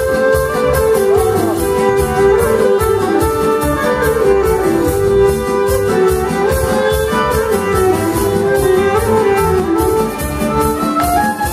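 Live band playing folk dance music, a violin carrying the melody over a steady beat.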